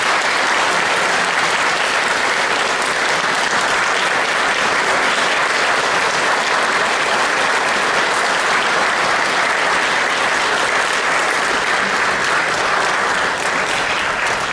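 An audience giving warm, steady applause that eases slightly near the end.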